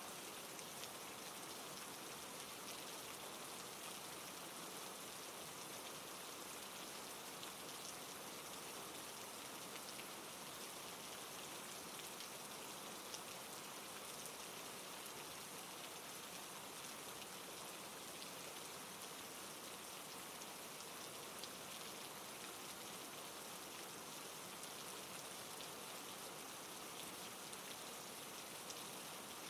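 Steady rain falling, an even patter of raindrops hitting a surface.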